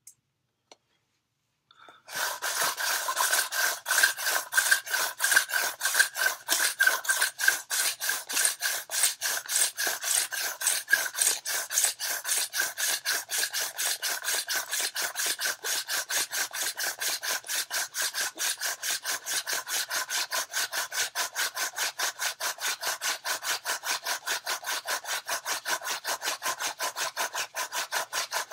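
Hand-drill friction fire: a goldenrod spindle spun back and forth between the palms, its tip grinding and squealing in the socket of a western red cedar hearth board as it works toward an ember. The rhythmic rubbing starts about two seconds in and runs at about four strokes a second.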